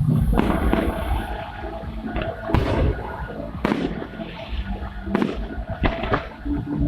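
Fireworks display: about half a dozen sharp bangs of bursting shells at irregular intervals, over a continuous noisy background.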